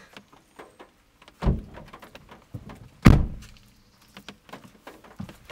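Car door thumps: two dull knocks about a second and a half apart, the second and louder one a door being shut.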